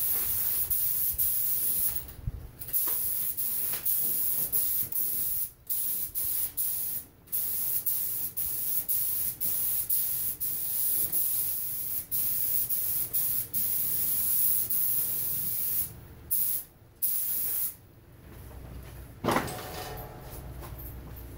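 Gravity-feed paint spray gun hissing as it lays down clear coat, in long passes broken by brief pauses where the trigger is let go. The spraying stops near the end, and a short knock follows.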